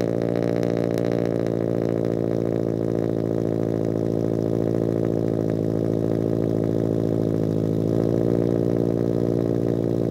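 Scion FR-S's 2.0-litre flat-four boxer engine idling steadily just after a cold start, really loud.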